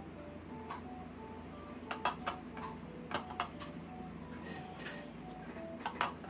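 Clicks of clear plastic 3D crystal puzzle pieces being handled and pressed together, coming in small clusters about two seconds in, around three seconds, and near the end. A faint background melody of short single notes plays throughout.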